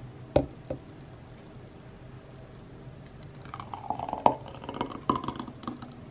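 Thick green smoothie poured from a blender jar into a glass. Two light knocks come near the start; then, from a little past halfway, the thick liquid glugs and plops into the glass for about two seconds.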